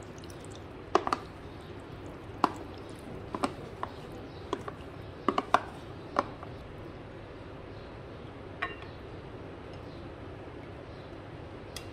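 Sharp clicks and knocks of a plastic container against a glass bowl as jelly cubes are tipped and shaken out into a milky drink, mostly in the first six seconds, often two close together. One or two lighter clinks follow later.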